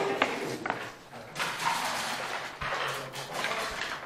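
Backgammon checkers and dice clicking against the board in a few short, sharp knocks over a steady room hubbub.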